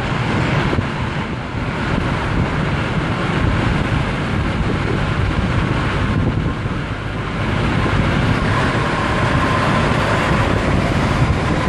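Steady road and wind noise from a moving car, with a rumbling buffet of wind on the microphone. A faint steady whine comes in about eight seconds in.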